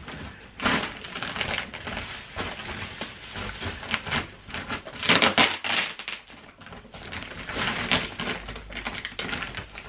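Thick plastic wrapping crinkling and rustling in uneven bursts as hands grip and pull at it around a rolled, vacuum-compressed mattress topper. It is loudest about five seconds in, and the wrap is proving hard to open.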